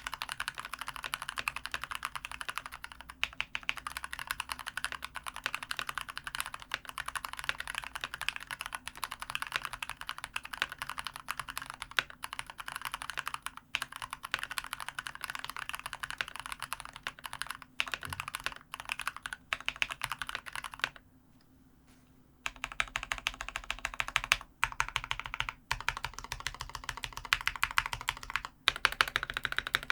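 Fast, continuous typing on a COX CK108 mechanical keyboard with spray-lubed Gateron Brown tactile switches and foam dampening inside the case. The typing stops briefly a little over two-thirds of the way in, then resumes.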